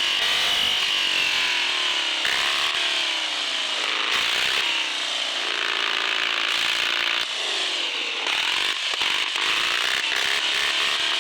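Electric motor and gearbox of an RC 4x4 truck whining under throttle, its pitch sliding down and back up several times as the throttle and load change.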